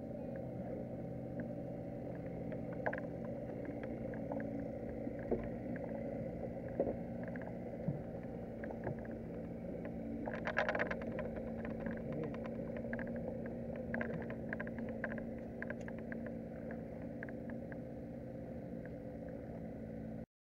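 A boat engine hums steadily under scattered clicks and knocks of fishing gear being handled in a small boat, with a fast run of clicking about halfway through.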